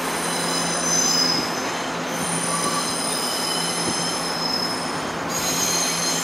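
Wheels of a Taiwan Railways DRC1000-series diesel railcar squealing as it creeps through curved track and points: several high, steady squeal tones that shift and change pitch mix a couple of times, over the low, steady running of the railcar's diesel engine.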